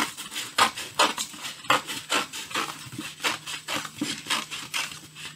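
Scissors snipping through a paper plate, cutting it into a spiral strip: a steady run of crisp snips, about two a second.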